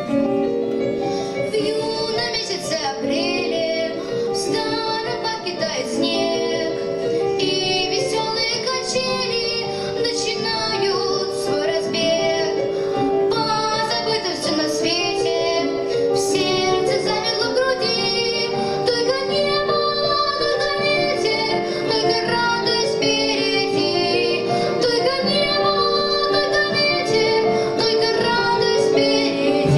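Large combined children's choir singing a song.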